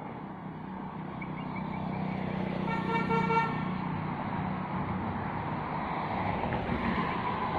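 Road traffic passing, its engine and tyre noise growing louder, with a vehicle horn honking briefly about three seconds in.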